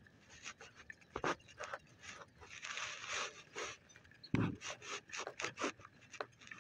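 Close handling noise: irregular rubbing, scraping and clicking of a hand and phone against a fishing rod's grip, with two dull knocks, one about a second in and one past the middle.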